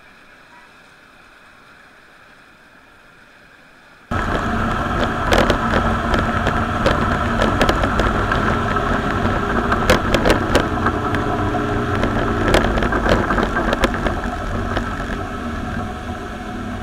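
Faint steady hum for about four seconds, then the loud, steady running of a Yamaha Saltwater Series II 200 hp V6 outboard under way, with scattered sharp knocks. The 'Uh oh' caption and the title put this at the moment the motor fails.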